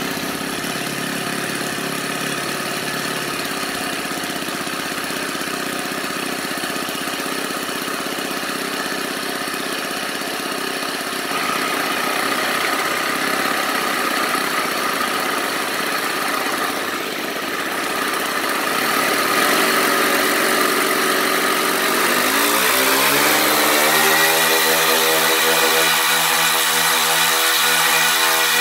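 Twin OS 40 four-stroke glow engines of a radio-controlled DC-3 model running on their first run-up, getting louder about eleven seconds in. Around 22 seconds in they are throttled up, the pitch rising, and held at high revs near the end.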